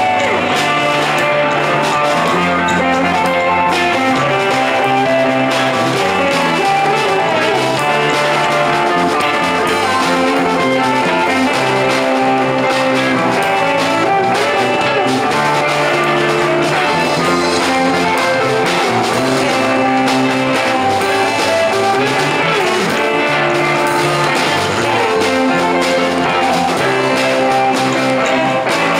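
Live rock band playing an instrumental passage, with electric guitars, bass guitar and drums.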